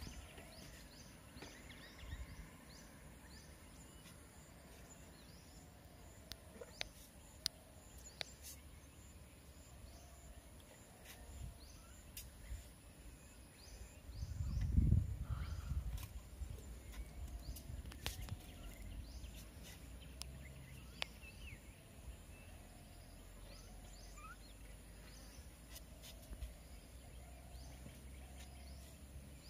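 Quiet outdoor ambience: faint, scattered bird calls over a low steady rumble, with a few soft clicks and a louder low-pitched swell about halfway through.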